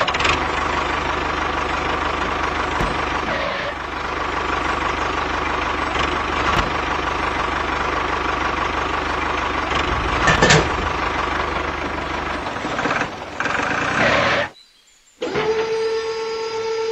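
Tractor engine running steadily with a low throb, with one sharp knock about ten seconds in. Near the end it cuts out for under a second, and a steady, higher-pitched whine takes over.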